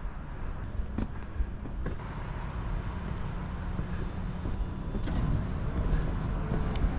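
Low, steady rumble of wind and handling noise on a handheld camera's microphone while walking, with a few scattered taps of footsteps.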